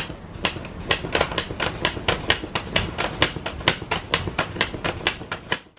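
Foot pump being worked quickly to inflate a soft car tyre: a fast, even run of clicks and puffs of air, about five a second, that stops abruptly near the end.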